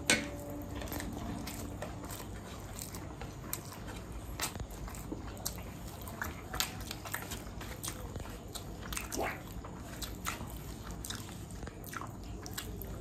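A person eating close to the microphone: chewing and biting, with many small wet clicks and crunches, and one sharp click right at the start.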